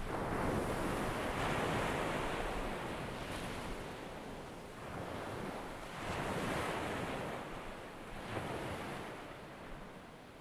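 Sea surf washing in, a hissing rush that swells and falls back about three times.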